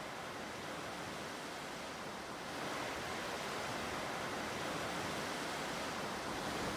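Floodwater of a swollen river rushing over a weir or rapids: a steady roar of turbulent water that grows louder about two and a half seconds in.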